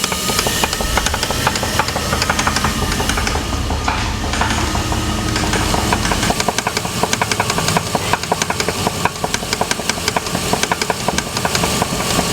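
1999 Jeep 4.7-litre V8 engine running with a rapid, regular knock, the fault it was torn down over.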